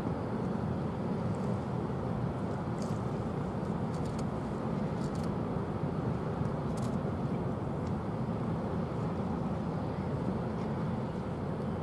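A steady low rumble of outdoor background noise, with a few faint high ticks.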